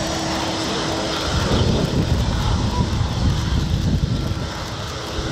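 Airbus A350-900 airliner's Rolls-Royce Trent XWB jet engines rumbling as it lands. A low rumble swells about a second and a half in and stays strong and uneven.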